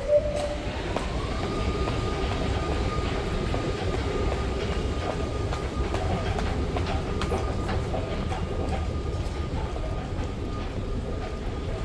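Underground train rumbling in the station, with an electric whine that rises in pitch over about the first second and a half and then holds steady.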